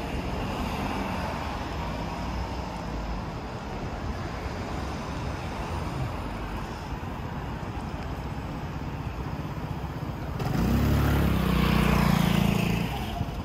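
Street traffic noise from passing cars. About ten seconds in, a motor scooter rides past close by, its engine running loudly with a whine for a couple of seconds before fading away.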